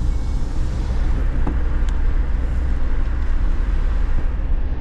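Car driving along a road: steady low engine and tyre rumble.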